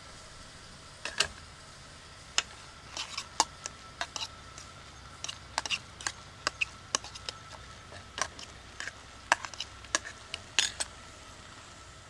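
Metal cooking utensils clinking and tapping against metal cookware, a string of irregular sharp clicks.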